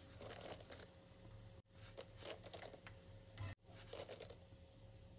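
Fried peanuts poured onto a heap of puffed rice in a steel pan: faint, light pattering and rustling as they land, broken twice by brief dropouts.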